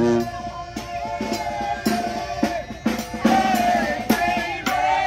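New Orleans second line brass band playing on the march: horns holding a wavering melody over bass drum and snare strokes.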